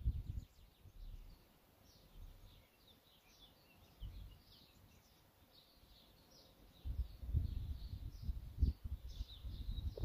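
Small songbirds chirping and twittering in quick short notes throughout. Gusts of wind rumble on the microphone, dying down early on and picking up again about seven seconds in.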